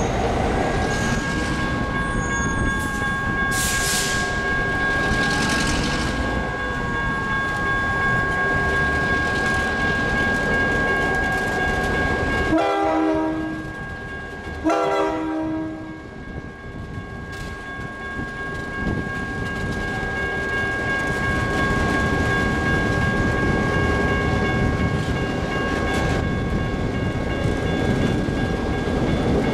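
Slow-moving freight train hauled by SRY Rail Link diesel locomotives, with steady engine and wheel-on-rail noise and a continuous high-pitched wheel squeal. The locomotive horn sounds twice about halfway through, each blast lasting about a second.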